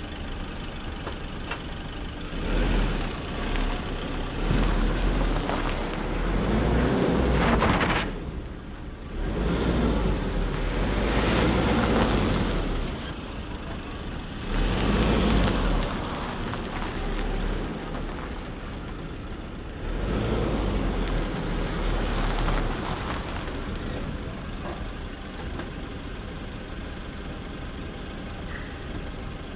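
Diesel engine of a Nissan NT400 truck running as the truck manoeuvres slowly, swelling louder in several surges through the first two-thirds. It then settles to a steadier, quieter run.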